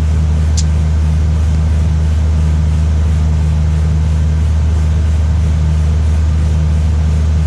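Combine harvester engine running with a steady low drone while unloading soybeans into a gravity wagon. A short high tick sounds about half a second in.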